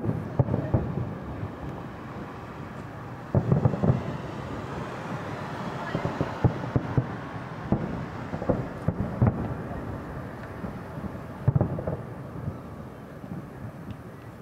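Aerial firework shells bursting in a string of about seven deep booms, spaced several seconds apart at first and then coming closer together, with crackling in between.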